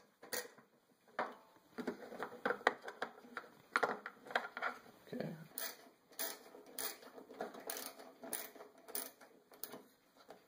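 Socket ratchet wrench clicking as it loosens a belt-cover bolt. Scattered small clicks and knocks of tool handling come first, then a steady run of sharp clicks, a little more than one a second, in the second half.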